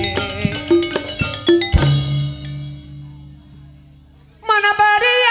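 Gamelan-style ensemble music: quick mallet-struck metallophone notes over drum strokes, closing about two seconds in on a deep gong stroke that rings and slowly fades. Near the end a loud held high note starts.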